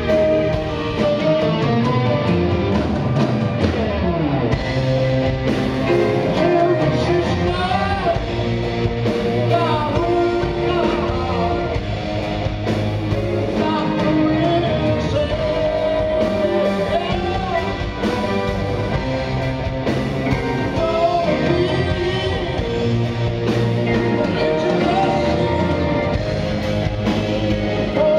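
Live rock band playing loudly, led by an electric guitar with bending notes over drums and keyboards.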